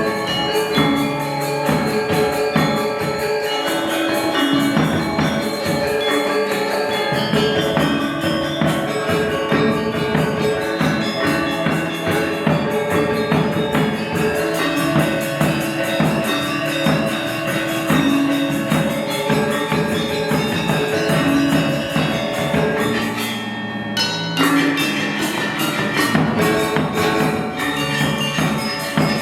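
Balinese gamelan gong ensemble playing: interlocking bronze metallophones and gongs ring over a driving beat. The ensemble breaks off briefly near the end, then comes back in.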